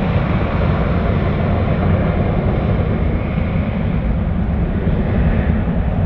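Airbus A350-941's Rolls-Royce Trent XWB turbofan engines running loud and steady: a deep jet rumble with a broad rushing hiss above it.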